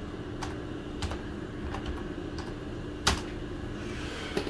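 A few light, sharp clicks and taps, like keys or a mouse being clicked, spaced about half a second to a second apart, with one louder click about three seconds in, over a steady low hum.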